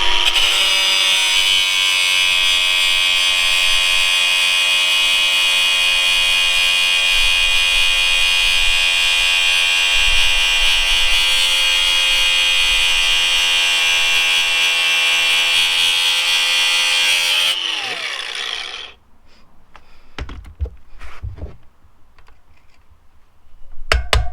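Angle grinder grinding at a steady pitch through the old drive chain to break it apart. About three-quarters of the way in it is switched off and winds down with a falling pitch. A few light knocks follow.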